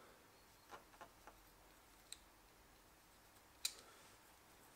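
Faint clicks and scrapes of a utility knife blade trimming a rubber tyre repair plug flush with the tread, with one sharper click about three and a half seconds in.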